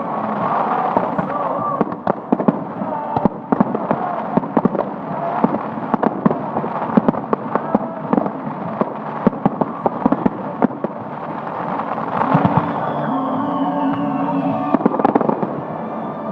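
Fireworks going off in quick succession, many sharp bangs and crackles one after another, with a falling whistle a little before the end.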